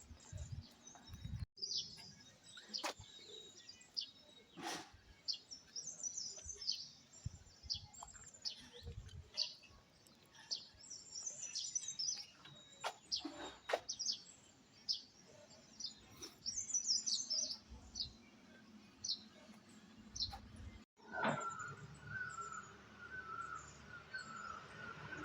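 Small birds chirping and tweeting: many short, high chirps scattered throughout, with a few sharp clicks. Near the end a steadier trill sets in.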